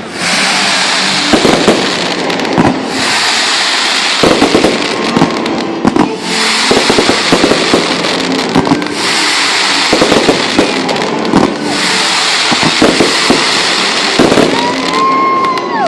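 Fireworks display: repeated sharp bangs with dense crackling between them, and a steady whistling tone near the end.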